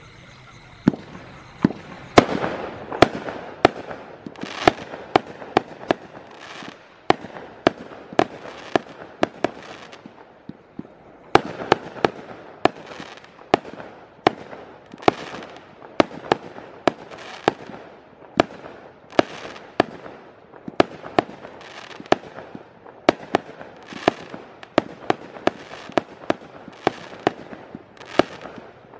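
A 20 mm, 49-shot firework cake (battery) firing a steady run of sharp reports, one or two a second. Each report trails off in a brief fizz, and there is a short pause about ten seconds in.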